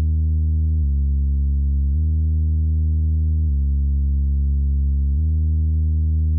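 Bass test tone played through a sound system's speakers: a loud, steady, low synthetic tone that switches back and forth between two low pitches every one to two seconds.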